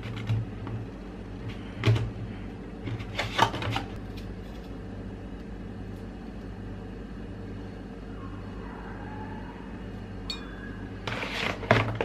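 Food prep on a kitchen counter: a few light clicks and knocks in the first four seconds as tomatoes are taken from a plastic clamshell container, then paper towels rustling and crinkling near the end, over a steady low hum.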